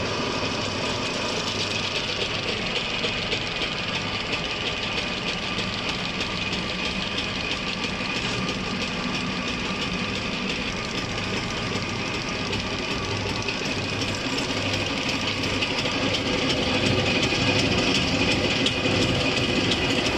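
Zexel six-cylinder in-line diesel injection pump running on a test bench, a steady mechanical hum with a pulsing low beat and a metallic rattle, while its fuel delivery is being calibrated. It gets louder a few seconds before the end.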